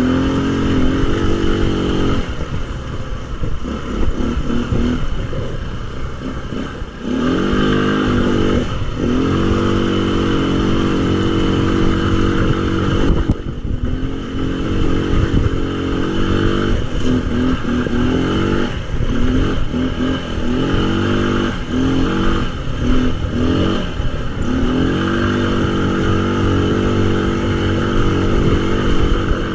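Tao Tao 200cc quad ATV engine revving up and down over and over while riding, its pitch climbing and falling several times, with rattling from the machine and rough ground.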